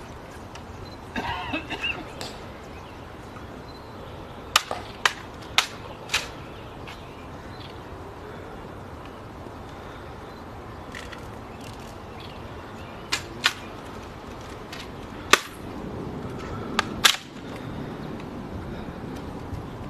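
A rifle being handled: sharp mechanical clicks and slaps, some single and some in quick pairs or groups of three or four, spread through the stretch with the loudest about two thirds of the way in.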